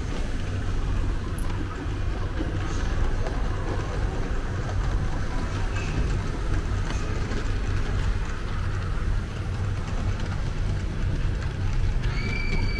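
Model trains running on a large model railway layout, a steady low rumble. A brief high tone is heard near the end.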